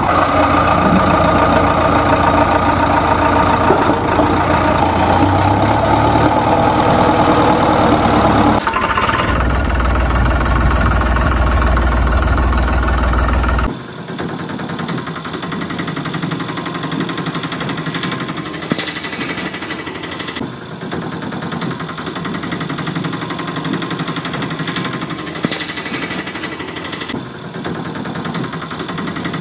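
An engine-like motor running steadily, its sound changing abruptly about nine seconds in and again about fourteen seconds in. After the second change it is quieter and lighter.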